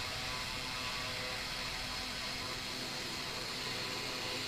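CNC milling-engraving machine's spindle motor running steadily and quietly, a smooth hum with a faint steady whine over noise.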